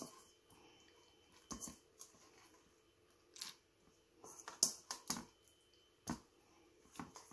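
Hand rubbing raw hilsa steaks with salt and turmeric in a stainless-steel bowl: faint, scattered wet squishes and soft knocks of the fish against the bowl, busiest a little over halfway.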